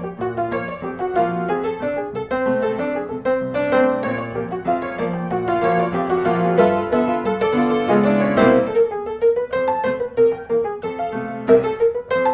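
Background piano music, a melody of quick successive notes.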